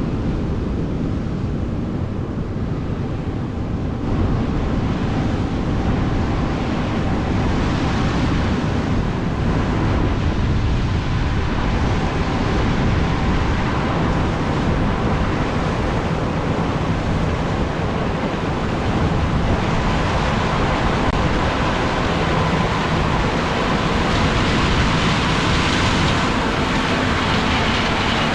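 Heavy farm machinery engine running steadily under a wash of wind noise on the microphone, a little louder about four seconds in.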